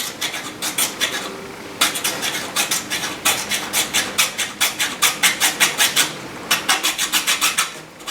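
Hand hacksaw sawing with quick back-and-forth strokes, in several spells with short pauses between.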